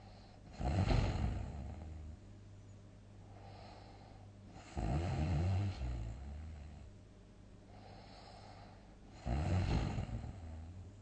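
A sleeping person snoring heavily: three loud, rumbling snores about four and a half seconds apart, with softer breaths between them.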